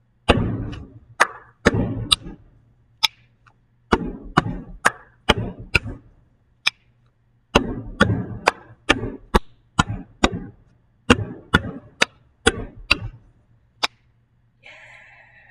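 Hands patting and tapping on a wooden desktop and clapping together in a quick rhythmic pattern, a mix of sharp claps and duller slaps on the wood, played through four times with short pauses between runs.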